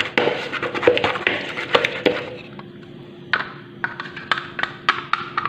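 A utensil stirring yogurt and grated orange zest in a plastic jug, clicking and scraping against the sides. The clicks come quickly for about two seconds, then turn to sparser single taps.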